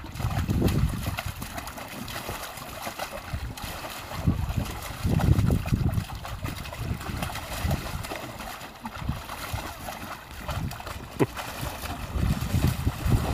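A German shepherd splashing and pawing in the water of a small children's paddling pool, with irregular sloshes and splashes.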